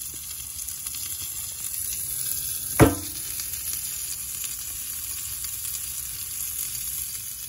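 Charcoal fire in a cast iron grill sizzling steadily, with one sharp pop about three seconds in.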